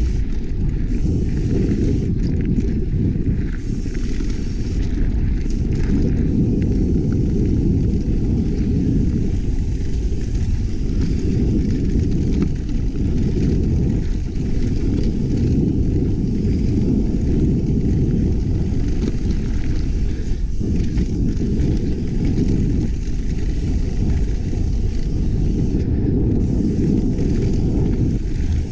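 Heavy, steady wind buffeting on a GoPro's microphone from a mountain bike ridden fast downhill on a dirt trail, with faint tyre and rattle noise from the bike underneath.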